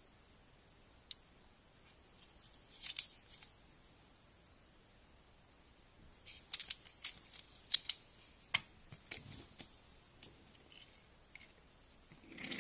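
Scattered small, sharp clicks and short rustling scrapes, a brief cluster about three seconds in and a busier run from about six to nine seconds in.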